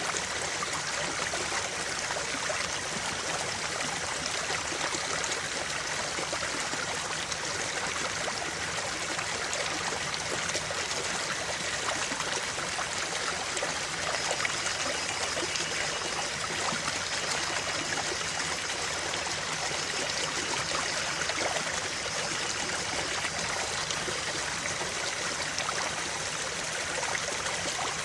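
A creek's water flowing and trickling steadily over rocks.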